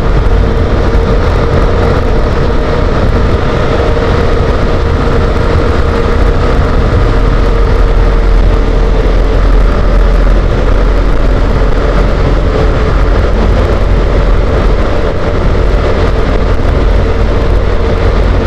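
Motorcycle running steadily at cruising speed through a road tunnel, its engine droning under a loud, steady rush of wind and traffic noise on the microphone.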